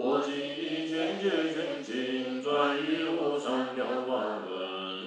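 Buddhist chanting by a group of voices in unison, a slow, sustained melody of held notes.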